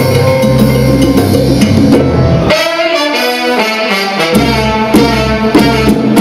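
Salsa music with a horn section and percussion. About two and a half seconds in, the bass and drums drop out, leaving the horns playing alone, and the full band comes back in just after four seconds.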